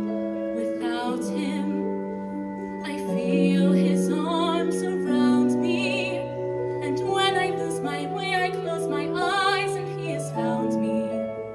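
Teenage girl singing a solo into a microphone over soft, sustained accompaniment, her voice wavering with vibrato on the held notes.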